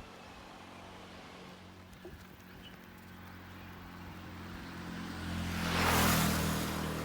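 A motor vehicle approaches and passes close by on the road. Its low engine hum grows louder over the last few seconds, and the tyre and rush noise swells to its loudest about six seconds in.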